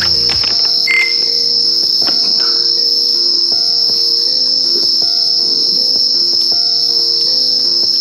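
Night insect chorus: a steady, unbroken, high-pitched chirring.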